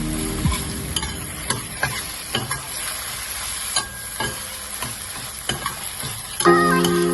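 Food sizzling in a frying pan while it is stirred, with repeated sharp clicks and scrapes of a utensil against the pan. Background music comes in near the end.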